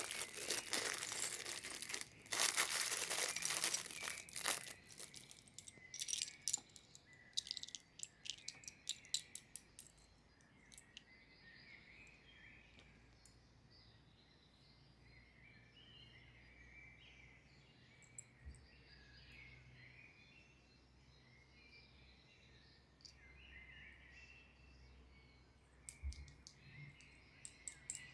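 Packaging crinkling and tearing loudly for the first few seconds, then light clicks and taps of small plastic toy pieces being handled, a few more near the end. Faint bird chirping runs underneath once the crinkling stops.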